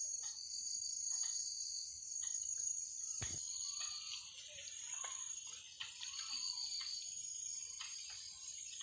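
Night insect chorus, a steady high-pitched shrilling, with scattered light rustles and one sharp knock about three seconds in.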